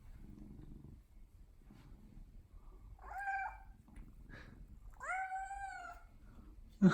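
Domestic cat meowing to ask for something: a short meow about three seconds in, then a longer meow that rises slightly and falls away.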